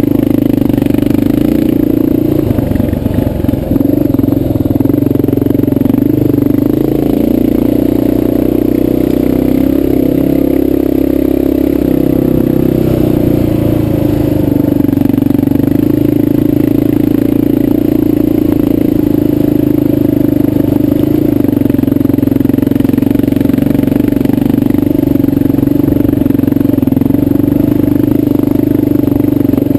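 Dual-sport motorcycle engine running steadily under load as the bike climbs a rocky dirt trail, its pitch shifting a little about a third of the way in before settling.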